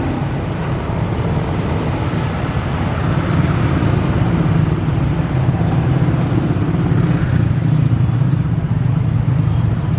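Diesel locomotive engine running with a steady low rumble, growing louder about three seconds in.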